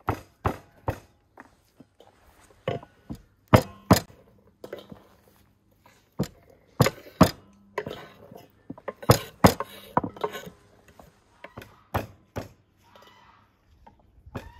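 Kitchen knife chopping onions on a wooden cutting board: irregular sharp knocks, some in quick pairs.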